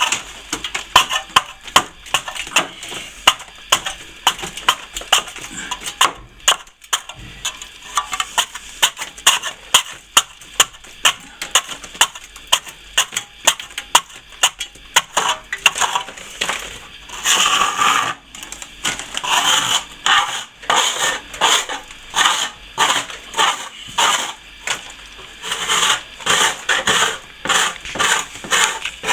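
A sharp-edged blade scraping plaster off a surface in quick, repeated hard strokes, getting louder and denser about halfway through.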